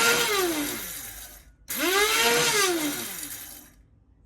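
Electric spice grinder's motor pulse-grinding flax seeds. One pulse winds down about a second in, then a second pulse of about two seconds follows, its whine rising as the blade spins up and falling away as it coasts down.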